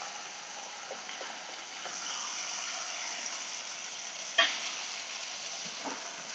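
Beef steaks sizzling steadily in a frying pan over low heat, with a sharp clink of a utensil against the pan about four seconds in and a few light knocks.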